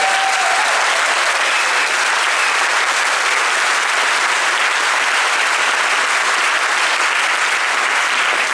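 Large audience applauding, a steady, loud clapping.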